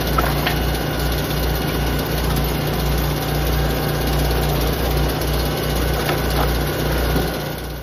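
Engine of a hydraulic firewood splitter running steadily under load while rounds are forced through a multi-way splitting wedge, with a few short cracks of wood splitting.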